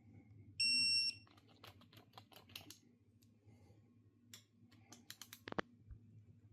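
An electronic torque wrench gives one high half-second beep as an oil pump bolt reaches its set torque of 18 foot-pounds. A run of sharp ratchet clicks and small metal taps follows as the wrench works the next bolt.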